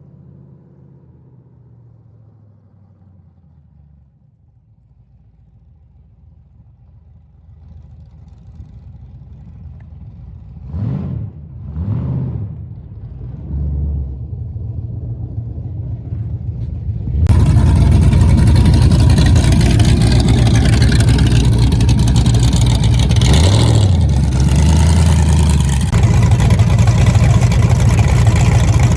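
Mercury Capri drag car on a street test hit: the engine is blipped three times in quick revs, then a little past halfway it goes to full throttle in a loud, sustained launch pull that runs to the end with a brief dip in pitch, likely a shift. The run is a test to see whether the rear end now tracks straight; the tires spin on the dirty road.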